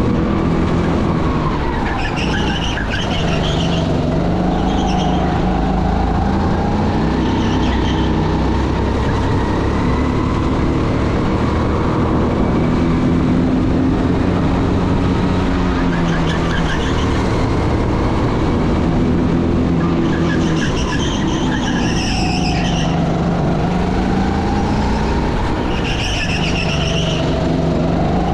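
Race car engine running with its revs rising and falling, and tyres squealing in short spells, about two seconds in, near the middle and again several times in the last third.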